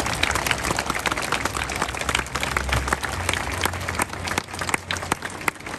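A crowd applauding at the end of a sung national anthem, many hands clapping at once and dying down near the end.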